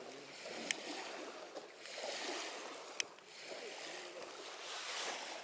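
Wood campfire crackling, with two sharp pops, one under a second in and one about three seconds in, over a steady wash of lake water lapping.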